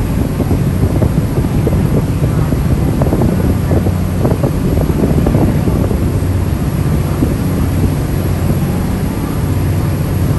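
A ferry's engines running with a steady low hum while under way, with wind buffeting the microphone.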